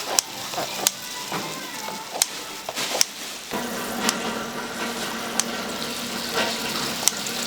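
Food sizzling on a hot cooking surface, with sharp clinks of metal utensils about once a second. A low hum comes in about halfway through.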